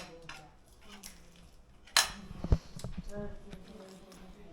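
Tableware clinking and knocking at a meal table: a few sharp clicks, the loudest about two seconds in, then a low knock, with faint voices.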